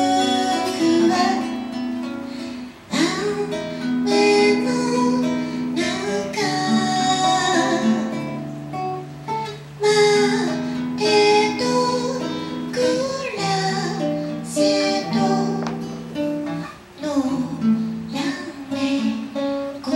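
A woman singing a song into a microphone, accompanied by an acoustic guitar.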